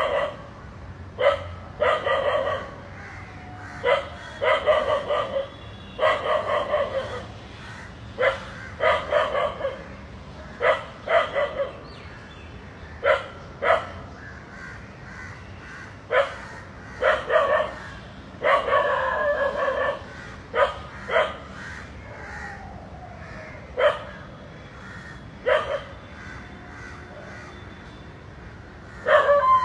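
A dog barking repeatedly, in single barks and quick runs of several, with short pauses between. It is barking in alarm at two snakes coiled together in front of it.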